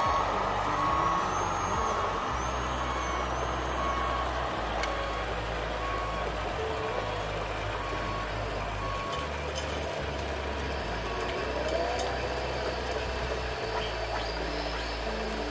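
Reversing beeper on an RC model truck, beeping evenly about once every three-quarters of a second, then stopping about two-thirds of the way through, over a steady low hum.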